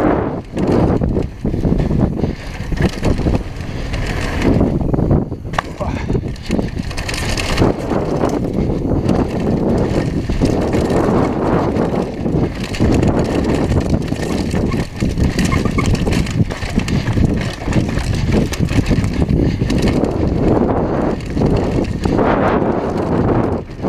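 Downhill mountain bike ridden fast over a dirt and gravel trail: tyres rolling and crunching, with constant rattles and knocks from the bike over bumps, and wind buffeting the microphone.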